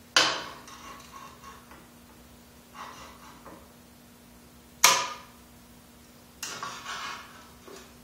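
Metal clicks and clanks of locking pliers and clamps being set on a square-tube steel frame: two loud sharp clicks, one at the start and one about five seconds in, a few light taps, and a short run of rattling clicks about six and a half seconds in.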